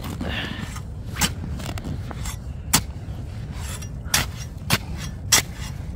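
Long-handled steel ice chipper chopping into hard-packed, crusted snow: about five sharp strikes at uneven intervals. The snow has hardened from being left too long after it fell.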